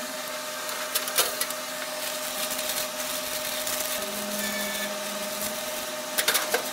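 Steady electrical hum of a snack vending machine open for service, with sharp clicks about a second in and a cluster of clicks and rustling near the end as the chip tray and bags are handled.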